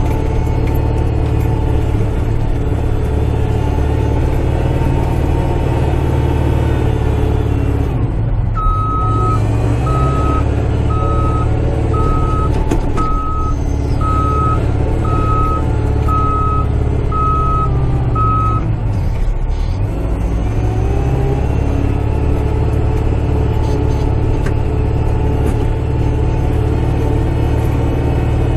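Kubota tractor's diesel engine running steadily, heard from inside the cab. About eight seconds in the engine slows and a short electronic beep repeats a little more than once a second for about ten seconds, then stops as the engine picks up again.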